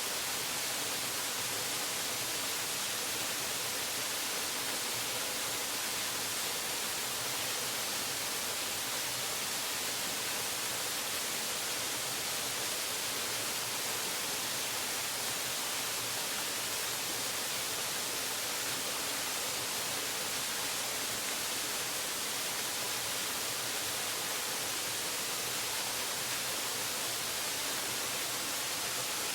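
Waterfall: falling water making a steady, even rushing hiss with no change in level.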